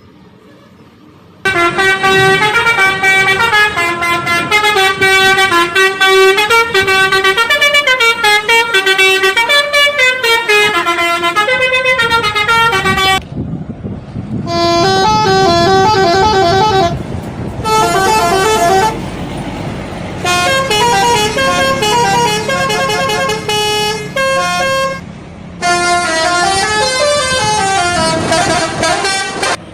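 Bus telolet horn, a set of air-horn trumpets sequenced to play tunes, sounding fast melodies of stepped notes in several phrases with short breaks, over a low rumble. It starts abruptly about a second and a half in.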